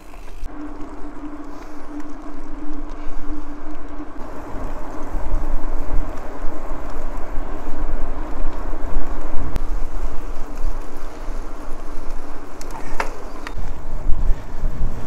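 Wind buffeting an outdoor microphone: a steady rushing noise with a low rumble that grows stronger about five seconds in, and a faint steady hum over the first few seconds.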